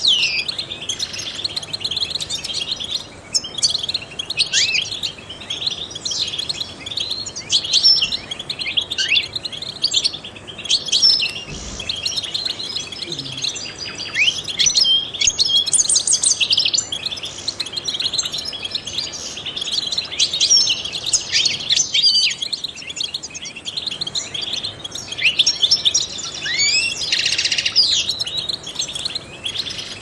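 European goldfinch singing: a fast, continuous run of high twittering chirps and short trills, with a brief buzzy stretch near the end.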